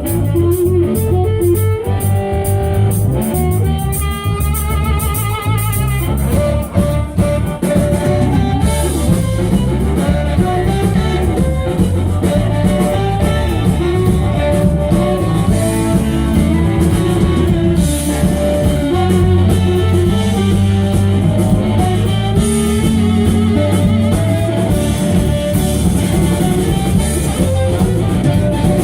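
Live blues band playing an instrumental passage, guitar leading over bass and drum kit, with no vocals.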